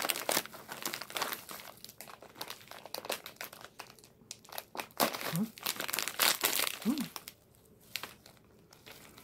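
Plastic snack bag crinkling and rustling in irregular bursts as it is handled in plastic-gloved hands, loudest a little past the middle.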